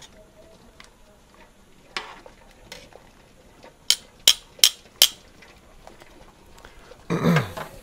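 Metal tongs stirring pasta in a stainless steel stock pot, then four sharp metallic clinks about half a second apart as the tongs are tapped on the pot. Near the end, a brief louder noisy sound.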